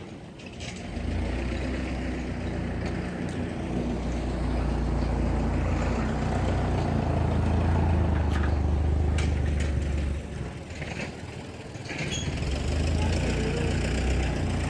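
Engine idling steadily with a low, even hum from about a second in, dipping briefly about ten seconds in before settling again, with a few short clicks.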